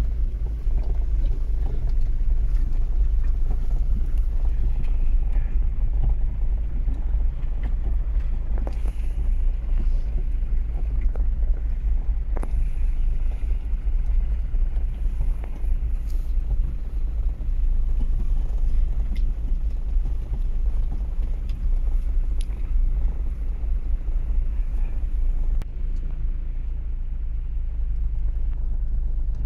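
Toyota Land Cruiser creeping through waterlogged mud, heard from inside the cabin: a steady low engine and driving rumble with a few scattered knocks.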